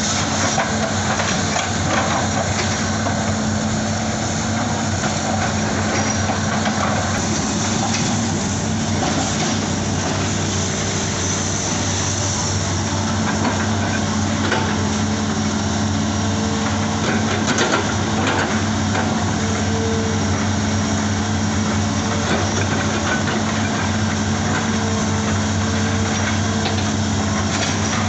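Hitachi excavator's diesel engine running steadily under a constant hum, with a few sharp knocks and clanks.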